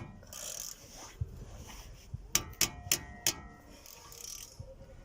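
Sharp metallic clicks and clanks of a socket wrench working the rusted-in bolts of a car's rear wheel hub: one at the start and a quick run of about five a little over two seconds in, each with a brief ring, and soft hissing noise in between.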